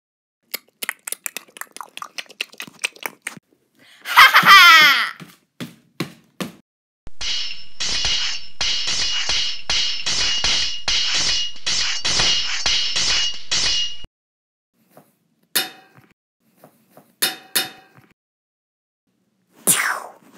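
Dubbed fight sound effects: first a run of quick clicks, then a loud sweeping burst about four seconds in. After that comes a long stretch of metallic clashing and clinking, pulsing two or three times a second for about seven seconds, and a few single sharp clangs near the end.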